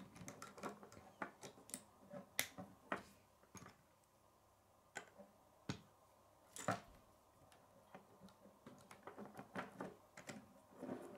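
K'nex plastic rods and connectors being handled and clicked together, with pieces tapping on a wooden tabletop: an irregular scatter of sharp clicks, the loudest about two and a half seconds in and again near the middle.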